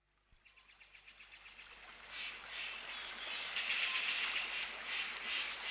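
High-pitched chirping calls in quick repeated pulses, fading in over the first two seconds and then carrying on steadily.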